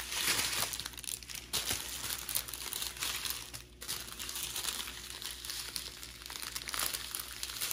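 Plastic packaging crinkling and rustling as it is handled, a run of small crackles.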